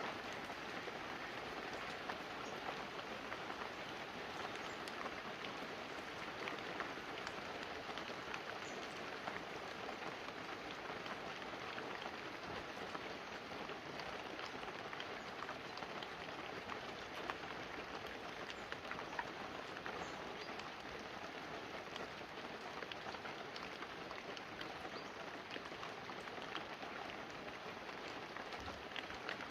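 Light, steady rain falling on banana leaves and a roof, a continuous patter of many small drops.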